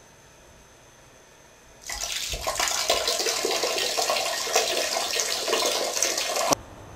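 A stream of liquid splashing into a toilet bowl, as in urinating. It starts about two seconds in, runs steadily for about five seconds and cuts off abruptly.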